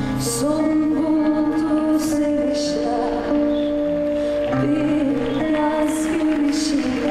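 Woman singing a slow song live into a microphone, over sustained instrumental accompaniment with a deep held bass note.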